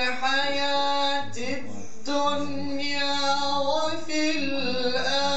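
A man's unaccompanied voice, amplified through a microphone, reciting Qur'an verses in a melodic, drawn-out style. He holds long wavering notes with ornamented turns in pitch and takes a short break between phrases about a second and a half in.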